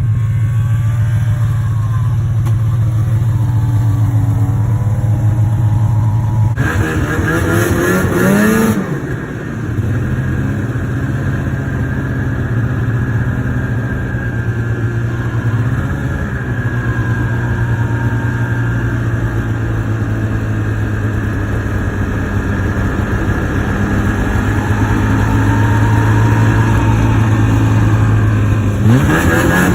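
Two-stroke snowmobile engine running steadily under way, revving up about seven seconds in and again near the end.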